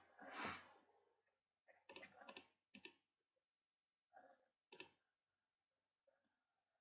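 Faint, scattered clicks of a computer mouse and keyboard: a few short clusters spread over a mostly quiet stretch.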